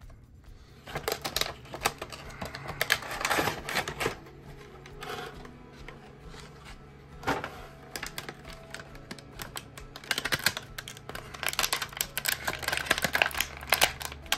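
Clear plastic packaging crinkling and crackling as it is handled, with cardboard and foam rustling while a die-cast model scooter is unwrapped. The crackling comes in two long stretches, about a second in and again from about ten seconds in.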